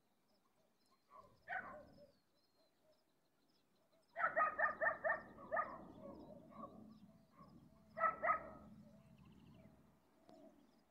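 A dog barking: a single bark, then a quick run of about six barks about four seconds in and two more about eight seconds in. Faint high bird chirps sound behind it.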